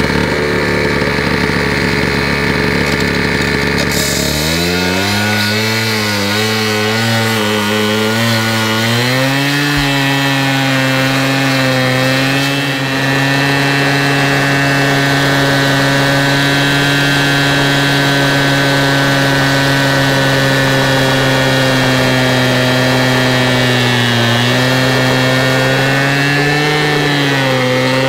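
Hilti two-stroke gas cut-off saw running at high revs while its abrasive disc cuts through a steel railroad rail. About four seconds in the sound changes, the engine pitch wavers for a few seconds as the disc is worked into the cut, then holds steady. The pitch dips briefly near the end.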